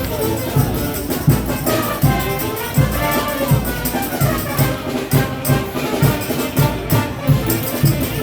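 Frevo orchestra playing: brass horns over a quick, steady drum beat.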